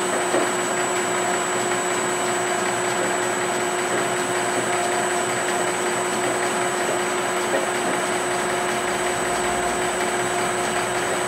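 Metal lathe running steadily with a steady whine, its spindle turning a Tecumseh crankshaft during a very light final finishing cut that takes off only about a thousandth and a half.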